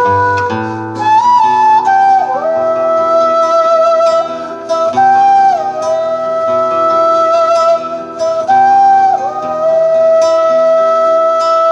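A flute plays a slow melody of long held notes, sliding between some of them, over acoustic guitar chords.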